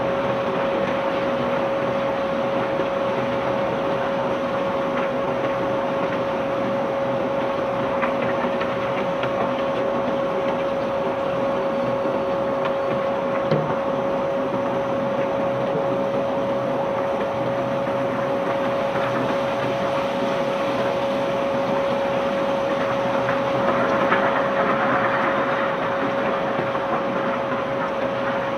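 Barge machinery running steadily with a constant whine over a rumbling, rattling noise, swelling briefly louder a little before the end.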